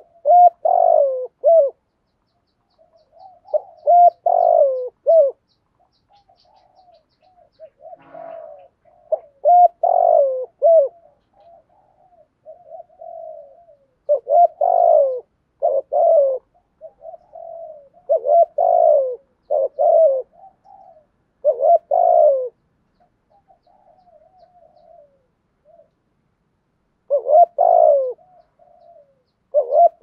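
Spotted dove cooing: loud phrases of two or three low coos every few seconds, with softer murmured coos between them.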